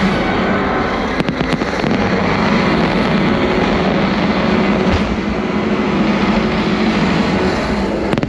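Fireworks display with a loud, continuous rumble and crackle, broken by a few sharp bangs a little over a second in and again near the end.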